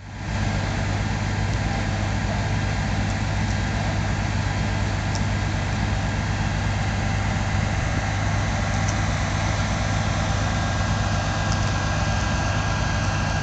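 An engine idling steadily, a continuous low hum.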